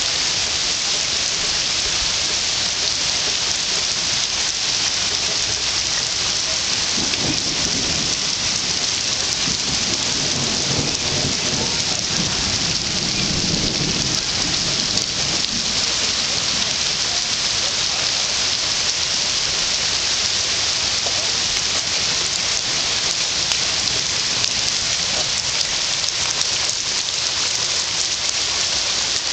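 Rain falling steadily, a dense even hiss. A low rumble comes up about seven seconds in and fades over several seconds.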